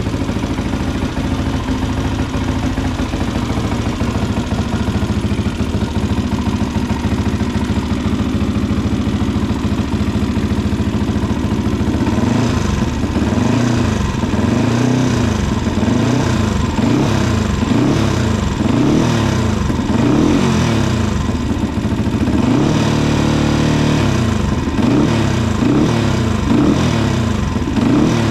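Yamaha WR155R's single-cylinder four-stroke engine running through a Radamel slip-on exhaust with its dB killer fitted. It idles steadily, then about twelve seconds in it is revved in a series of quick blips, with one longer held rev about two-thirds of the way through. The note is muffled, with little bass coming through the dB killer.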